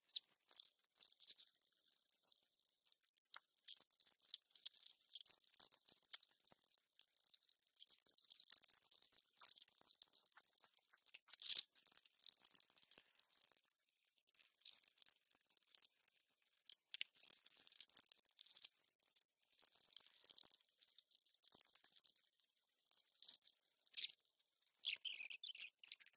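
Faint, irregular metal clicks and light scraping of a small wrench working on the bolts that hold a lapidary machine to its shipping platform, loosening them.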